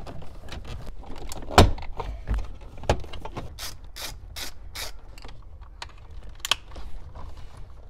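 Clicks, knocks and snaps of plastic dash trim and hardware as a car radio and its surround are refitted into the dash, with one sharp knock about a second and a half in. Midway there is a quick run of rasping, ratchet-like clicks, about three a second.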